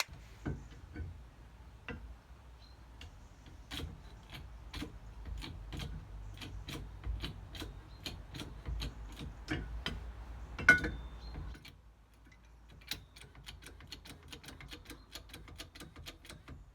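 Hydraulic hub puller being wound into position and set up on a van's hub: steady metallic clicking about twice a second over a low rumble, one louder knock late on, then faster, lighter clicking.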